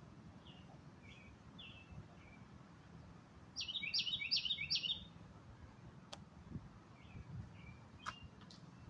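Wild birds chirping in the trees: a few scattered short chirps, then a run of four loud, quick chirps about three and a half seconds in, with fainter chirps after. Two sharp ticks come later.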